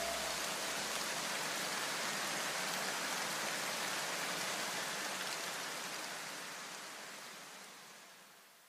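A steady, rain-like hiss of noise left over as the electronic background music's tones drop away. It fades out to silence near the end.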